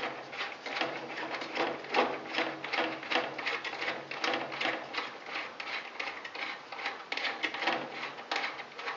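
Pliers gripping and turning a loose nut on a humidifier's water-line fitting: a quick, irregular run of small metallic clicks, scrapes and rattles, several each second.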